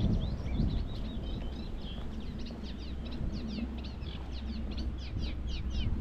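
A small songbird singing a long, fast stream of short high chattering notes, several a second, with a steady low rumble underneath.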